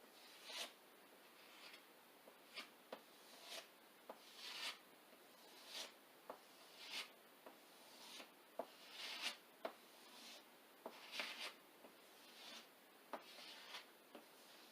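Faint, irregular rubbing strokes over a wet vinyl windshield decal as air bubbles are worked out of it: short swishes, one or two a second, with small sharp clicks among them.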